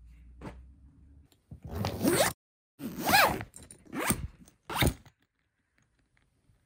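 Luggage zippers on a suitcase and a duffel bag being zipped in about five quick strokes, the second and third the longest and loudest, stopping a little after halfway.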